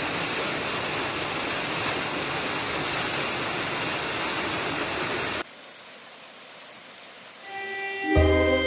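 Waterfall: a steady rush of falling water that cuts off suddenly about five seconds in, leaving a faint hiss, and music fades in near the end.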